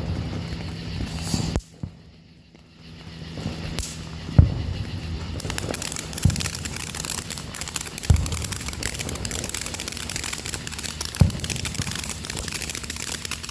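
Consumer fireworks going off: a dense, steady crackling starts about five seconds in, with four sharp bangs roughly two seconds apart.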